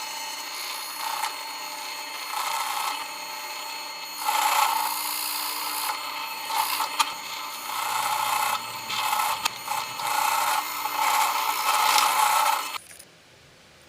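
A power drill turning a woodworking drill bit that bores into wood, the cutting noise swelling and easing as pressure on the bit changes. It stops suddenly near the end.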